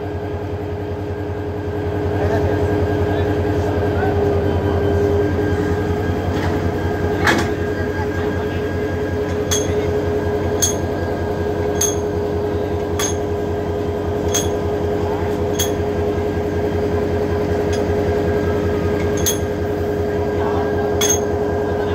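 Idling diesel locomotive engine, a steady hum. About seven seconds in there is one sharp metallic clank. Through the second half a light tick repeats about every second and a bit.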